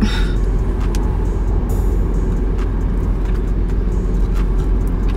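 Steady low rumble of a car idling, heard from inside the cabin, with a few faint clicks.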